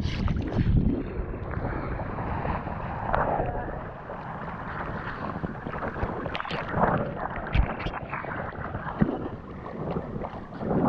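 Choppy sea water lapping and splashing around a camera held at the water's surface, with irregular sloshes and gusts of wind on the microphone.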